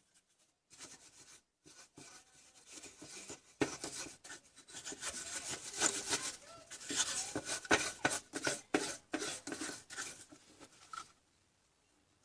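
Rubbing and scraping handling noises mixed with many sharp clicks and knocks. They start about a second in, grow busier after about four seconds, and stop about eleven seconds in.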